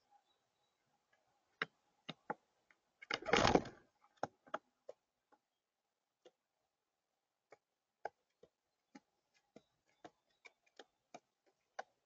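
Birds pecking seed and stepping on a hard tabletop feeder: scattered sharp taps, coming about twice a second in the second half. A bird's wings flap briefly about three seconds in, the loudest sound.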